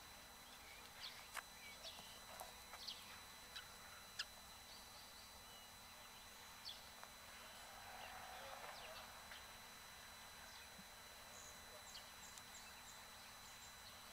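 Near silence: faint outdoor ambience with a few soft clicks and ticks in the first few seconds and a few faint bird chirps near the end.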